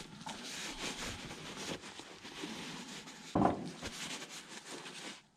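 Rubbing and scraping from chainsaw parts being handled on a work surface, with one thump about three and a half seconds in.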